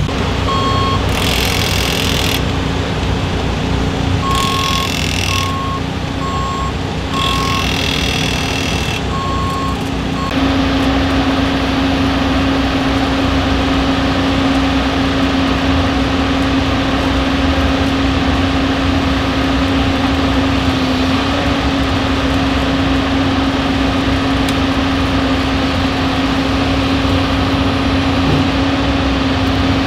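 A vehicle's reversing alarm beeping in short, evenly spaced beeps for the first ten seconds, with three bursts of hiss, over a steady hum of running machinery that grows louder about ten seconds in.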